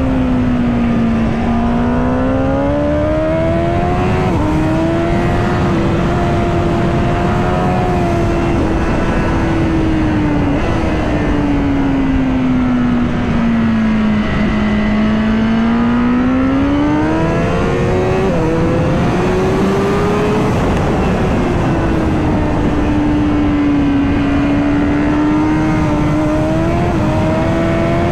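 Honda Fireblade's inline-four engine at speed on a race track, its note sinking twice as the bike slows into corners and climbing again on the throttle, with small jumps in pitch at gear changes. Steady wind rush under the engine.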